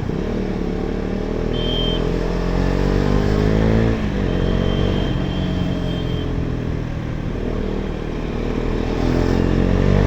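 KTM Duke 250 single-cylinder engine through an aftermarket Akrapovic exhaust, heard while riding. Revs climb over the first four seconds, drop sharply at a gear change, then rise again, easing off and picking up near the end. A high steady tone sounds briefly about two seconds in and again for about two seconds from four and a half.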